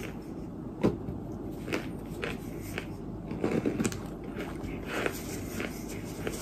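Close-miked chewing and crunching of white clay ('white dirt') in the mouth, a scatter of soft crackles and clicks. About halfway through, a plastic squeeze bottle squirts powder into the mouth, giving a quick cluster of sharper sounds.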